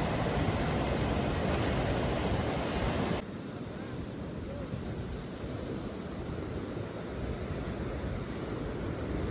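Ocean surf: a steady wash of breaking waves. It drops abruptly to a softer, duller surf about three seconds in.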